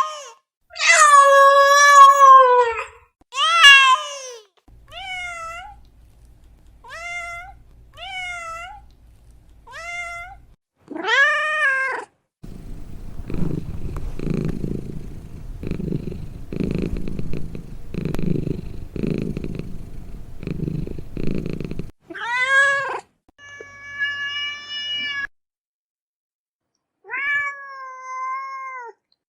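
Domestic cats meowing: loud, drawn-out meows at the start, then a run of shorter, softer meows. About twelve seconds in, one long meow gives way to close, rhythmic purring that pulses roughly once a second for about ten seconds, followed by a few more meows.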